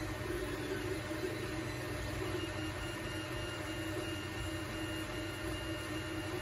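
Steady mechanical hum and whine of small electric motors, with a thin high tone joining about two and a half seconds in.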